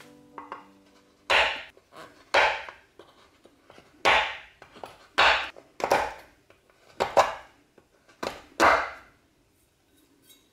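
A knife cutting a bar of white chocolate on a wooden cutting board: a sharp snap and crunch with each cut, about nine cuts spaced roughly a second apart, a few in quick pairs.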